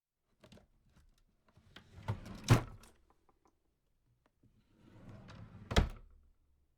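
A small drawer being opened and closed: twice, a short rattling slide ending in a sharp knock, the first about two and a half seconds in and the second near the end.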